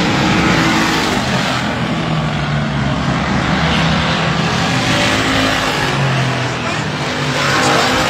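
Pack of pure stock race cars racing around a short oval track, several engines running loudly at once, their pitch rising and falling as the cars lap.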